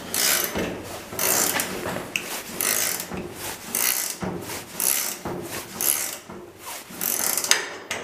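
A long box-end wrench worked back and forth on the forcing screw of a hinge pin puller, making repeated short mechanical strokes about twice a second as the screw presses a door hinge pin out of its hinge.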